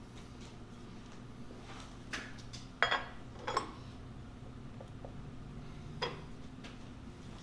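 Steel handle of a shaper vise clinking and clanking against the vise as it is fitted and the vise screw is tightened, a few separate metallic knocks with the sharpest one about three seconds in. A low steady hum runs underneath.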